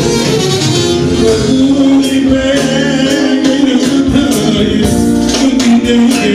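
Loud live dance music from a band with a man singing into a microphone, driven by a steady percussion beat.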